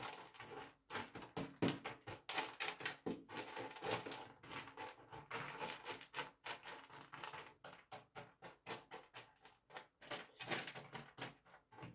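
Quiet, rapid scratching and clicking, several small strokes a second with short pauses between runs.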